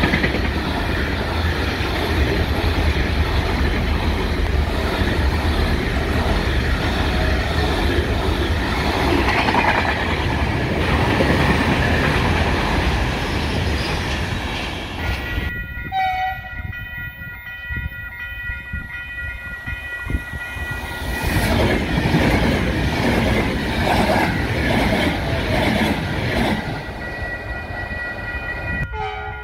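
Loaded container freight wagons rolling past, a steady rumble with wheel clatter. About halfway through the sound cuts to a quieter scene where a CP Class 4000 Alfa Pendular tilting electric train draws near with several steady high tones, and a rush of noise swells as it passes.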